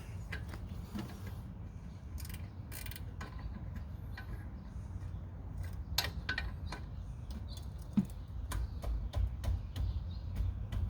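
Irregular metal clicks from a 13 mm ratchet wrench being worked on a rear brake caliper bolt, over a low steady rumble.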